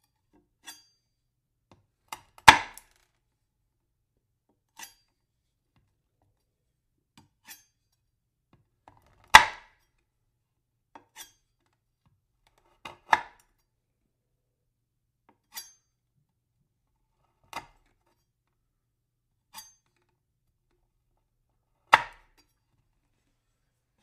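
A knife chopping down onto wood: about a dozen single, sharp chops spaced two to three seconds apart, with silence between. Most are light, and four are much heavier strikes.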